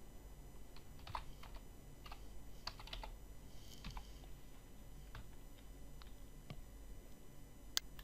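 Faint, irregular keystroke clicks of typing on a computer keyboard, with one sharper click near the end.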